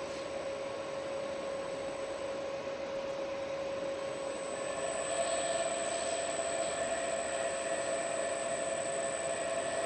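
Electric motor running on a variable frequency drive under test: a steady electrical whine over a noisy hum, its pitch stepping up slightly about five seconds in as the running frequency changes.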